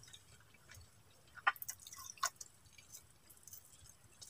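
Faint wet mouth clicks and smacks of a person chewing food: a handful of short ones, mostly in the middle.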